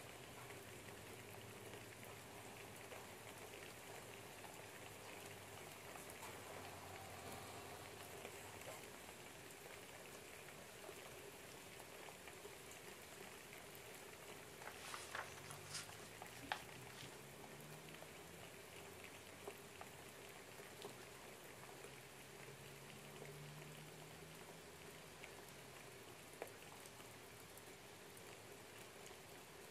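Light rain heard faintly as an even, steady patter. A few soft clicks come about halfway through.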